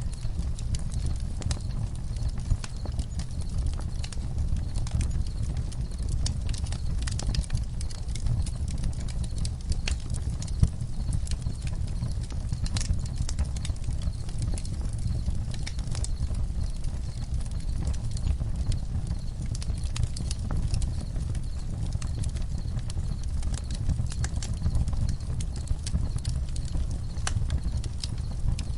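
Campfire crackling: irregular sharp pops and snaps of burning wood over a low steady rumble, with one louder pop about ten seconds in.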